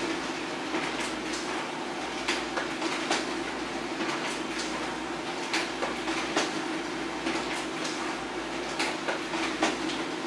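HP LaserJet Pro M402d laser printer running a continuous two-sided print job: a steady mechanical hum with frequent, irregular clicks and clacks as sheets feed through.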